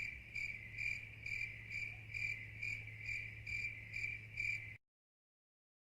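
A cricket chirps, a short, even chirp about twice a second over a faint low hum. It cuts off suddenly near the end.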